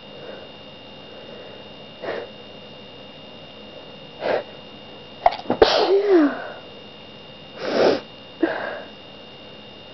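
A person sneezing once, loudly, with a voiced cry that falls in pitch. A couple of short breaths come before it and two more after.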